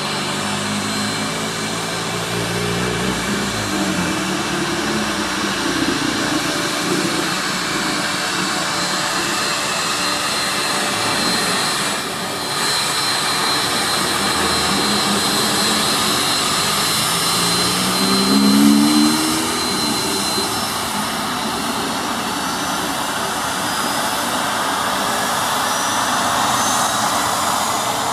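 Cessna Citation M2 business jet's twin turbofan engines running at taxi power: a steady jet roar with a high, even whine as the aircraft taxis and turns on the runway. A faint whistle rises in pitch near the end.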